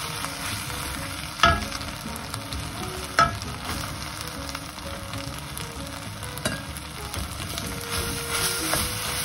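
Radish kimchi and bacon sizzling in a wok while being stir-fried and scraped with a wooden spatula as rice goes in. There are two sharp knocks, about a second and a half and about three seconds in.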